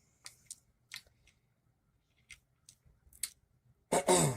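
A few short, sharp clicks spaced irregularly, then a brief bit of a man's speech near the end.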